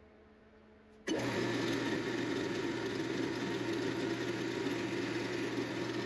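Drill press switching on abruptly about a second in and running steadily, its 3/32 inch twist bit cutting into the soft cast iron body of a Stanley 101 plane and throwing off iron chips.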